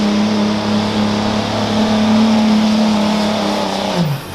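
Dodge Ram 3500 dually's Cummins turbo-diesel engine held at full throttle under heavy load as it drags a pulling sled, its pitch steady. About four seconds in, the engine note drops sharply as the throttle is let off at the end of the pull.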